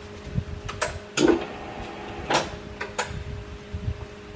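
Metal lathe running slowly in low gear with a steady hum, cut by four short, sharp scraping strokes of hand tooling against the spinning steel part.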